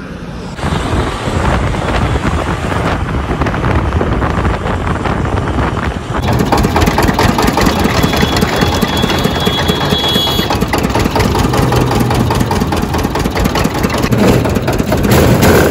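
Steady mechanical noise, then from about six seconds in a motor-driven sugarcane juice crusher running, its geared steel rollers turning as crushed cane is fed through.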